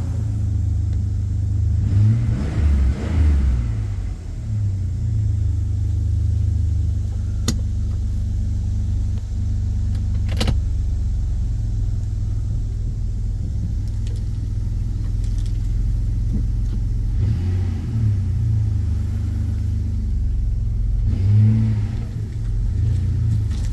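2003 Jeep Liberty's 3.7-litre V6 engine running steadily, with a few brief rises in revs. Two sharp clicks stand out in the middle.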